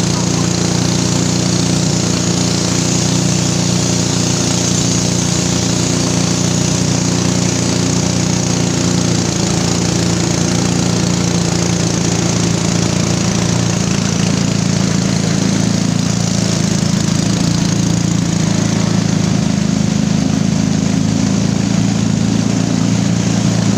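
Small boat's outboard motor running steadily at speed, with rushing water and wind over it.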